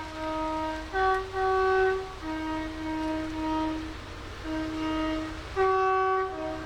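A train's two-tone horn sounding a run of short and long blasts, switching back and forth between its low and high notes in a tune-like rhythm, over a low rumble.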